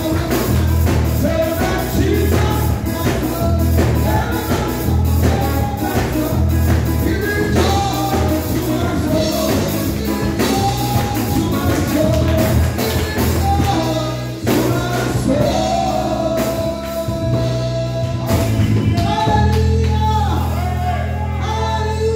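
Gospel praise song: a woman singing through a handheld microphone and PA over backing music with a steady beat and strong bass. The beat drops out briefly about two thirds of the way in, then the bass carries on.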